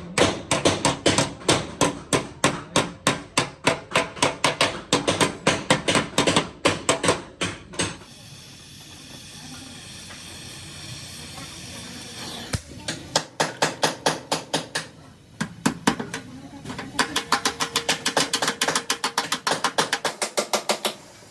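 Body-repair hammering on car sheet metal: quick runs of sharp blows, about four a second, with a break of steady hiss in the middle. The last run of blows has a metallic ring.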